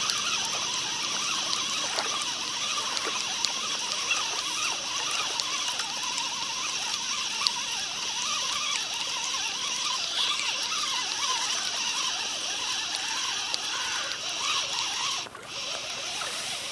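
Spinning fishing reel being wound steadily to bring in a hooked fish, stopping briefly near the end, with faint chirping in the background.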